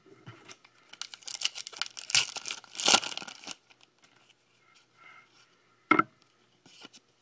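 A foil SP Authentic football card pack being torn open by hand, a dense run of tearing and wrapper noise lasting a couple of seconds. A single sharp tap comes near the end.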